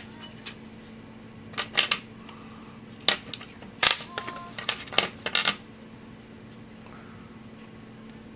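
Small metal sewing machine parts, presser feet among them, clinking and clattering as they are handled and sorted by hand. There are a few clusters of sharp clicks, some with a brief metallic ring, and the busiest stretch falls just before the middle.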